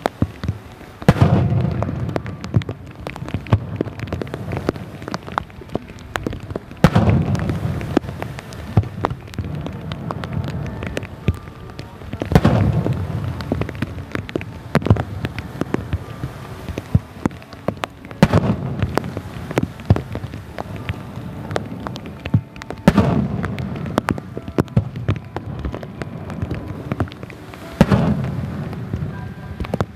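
Aerial firework shells bursting, six deep booms about five to six seconds apart, each fading off slowly. Heavy rain patters in between with many sharp little ticks.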